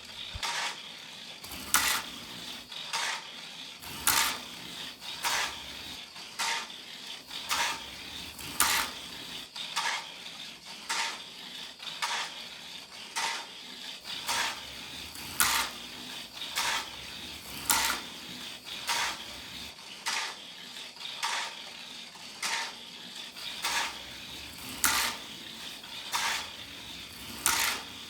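Hot Wheels Sizzlers '70 Plymouth 'Cuda T/A toy car running laps on orange plastic track. Its tiny battery-powered electric motor gives a steady high whine, with a sharp plastic clack about once a second.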